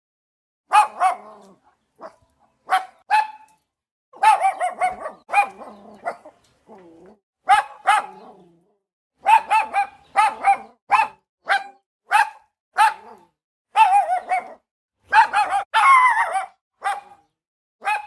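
Puppies yapping: many short, high-pitched barks and yelps in quick clusters, with a longer whining yelp about sixteen seconds in.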